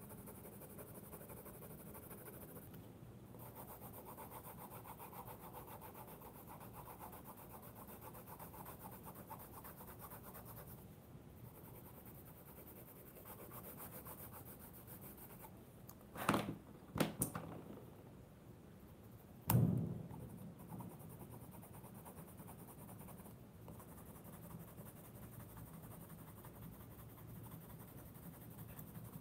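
Coloured pencil scratching softly across thick sketchbook paper as layers of orange and then green are laid down to blend. Past the middle come a few sharp knocks close together, then a louder single knock, as pencils are set down and picked up on the table.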